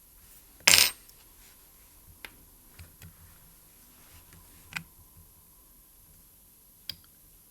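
A sharp metallic clink a little under a second in, then several fainter clicks and taps: small hard objects such as tools or watch parts being handled and set down on a watchmaker's bench.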